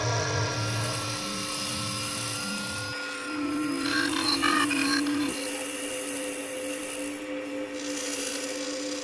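Dark-ambient electronic drone: several steady held tones over a hiss, with a low hum that drops out about three seconds in. Midway a lower tone swells up and a pulsing, buzzing higher layer joins for about two seconds, then both cut off.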